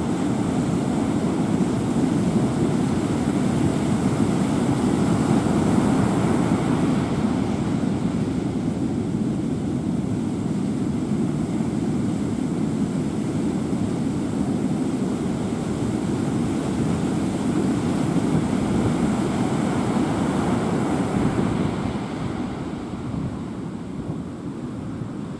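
Typhoon wind blowing hard, a steady rushing noise with gusts buffeting the microphone; it eases a little near the end.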